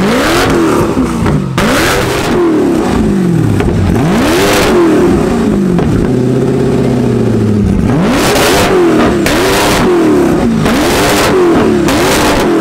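Koenigsegg CCX's twin-supercharged V8 being revved hard in a series of quick blips, about a dozen in all, the pitch rising and dropping back each time. It is very loud.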